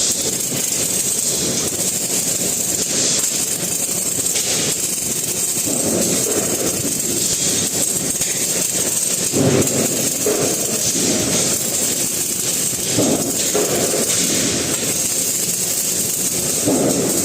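MIG welding arc crackling steadily, with a few slightly louder surges partway through and near the end.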